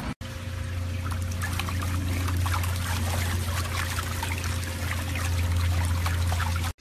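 Pool water splashing and trickling as a French bulldog puppy paddles its legs, over a steady low hum.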